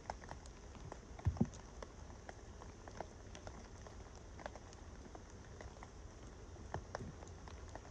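Raindrops pattering irregularly, with a low rumble of wind on the microphone and a couple of louder knocks about a second in.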